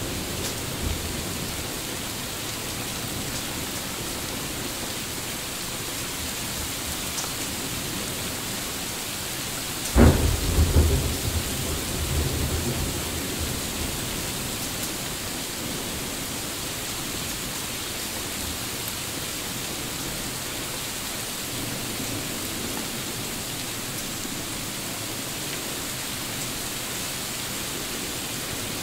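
Steady heavy rain in a thunderstorm, with a sudden close thunderclap about ten seconds in that rumbles away over the next few seconds.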